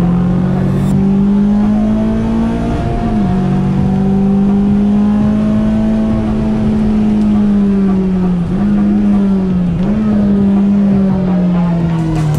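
Honda S2000's four-cylinder engine running hard on track, its note drifting slowly up and down with brief sharp dips about three seconds in and twice near the end.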